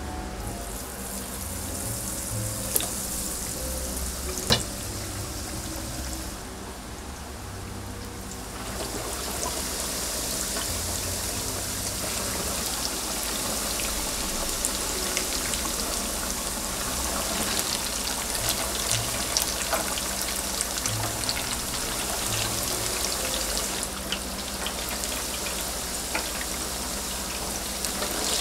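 Braised pig's trotters deep-frying in hot oil: a steady sizzle with many small crackles, growing fuller about nine seconds in.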